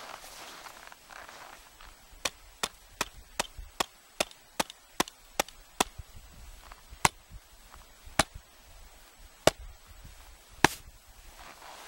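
Gloved hand tapping a shovel blade laid on top of an isolated snow column in an extended column test. First come ten quick, even taps, about two and a half a second, then four slower, louder taps about a second apart. The fourteenth tap fractured the column and the crack propagated (ECTP14), the sign of an unstable buried surface hoar layer.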